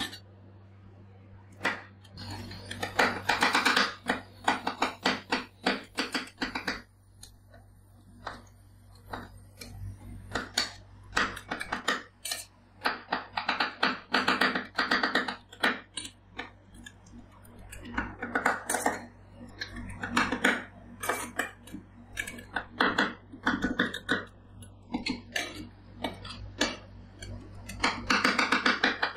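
Two metal spatulas chopping cherry tomatoes on a stainless-steel ice-cream-roll pan: rapid runs of sharp metal taps on the plate, in several bursts with short pauses, over a steady low hum.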